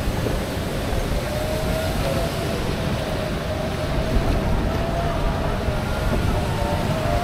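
An Aquatopia ride boat moving across open water: a steady low rumble of churning water and wind, with a thin, slightly wavering whine running through it.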